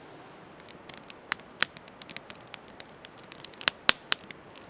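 Wood campfire crackling, with irregular sharp pops that come thicker after the first second; a handful are much louder than the rest.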